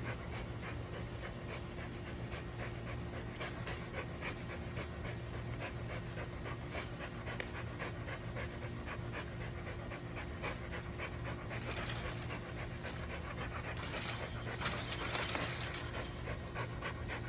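Dog panting hard while worrying at something with its teeth, with many small clicks through it; the dog is tiring itself out.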